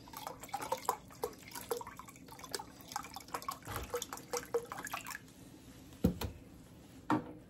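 Chicken broth poured from a glass measuring cup into a bowl of crumbled cornbread dressing, making many small splashes and drips for about five seconds. Then two dull knocks near the end.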